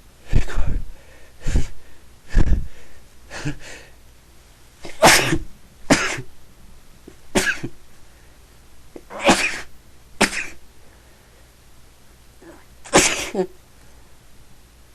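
A man sneezing again and again in a sneezing fit: about a dozen short, sharp bursts, some a second apart, others several seconds apart, with the loudest near the start, around the middle and near the end.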